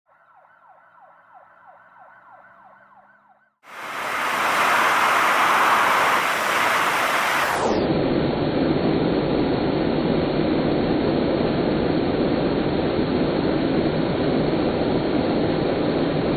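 Dryer vent cleaning vacuum starting up suddenly about three and a half seconds in and then running with a loud, steady rush of air. Before it starts there is a faint, quickly repeating falling chirp.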